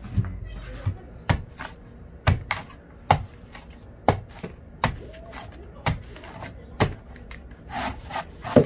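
Large knife chopping into the husk of a young green coconut, shaving it off in sharp chops about once a second, with lighter taps between.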